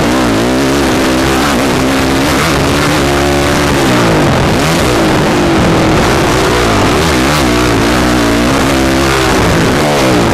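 Honda motocross bike's engine at race speed, revving up and dropping back again and again as the rider works the throttle and shifts through the gears.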